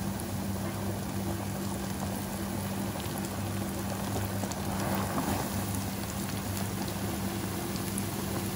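Flour-coated chicken pieces deep-frying in hot oil: a steady, dense sizzle full of fine crackles, over a low steady hum.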